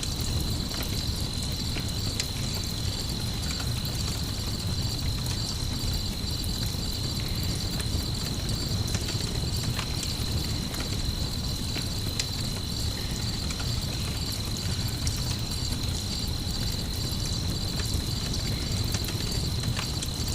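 Layered night ambience of a crackling campfire and a chorus of crickets: a steady high-pitched cricket trill over a low, even background noise, with scattered small crackles and pops from the fire.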